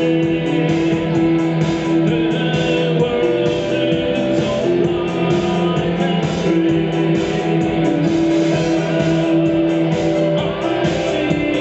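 Band music: an instrumental passage led by guitar, played steadily with no singing.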